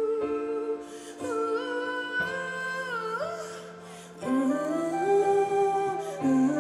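Live band playing a slow passage of held chords with a gliding melody line on top. It thins out and drops in level a little before four seconds in, then swells back with rising notes.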